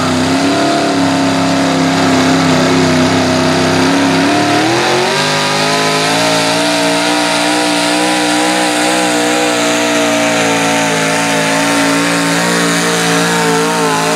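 Modified pulling tractor's engine running at high revs through open exhaust stacks. About five seconds in its pitch rises sharply, then holds steady at full revs as the tractor drags the sled down the track.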